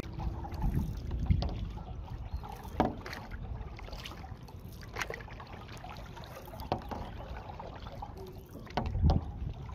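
Stand-up paddleboard paddle strokes: the blade dipping and pulling through river water, with a short splash every second or two over a steady low background. The loudest splash comes about nine seconds in.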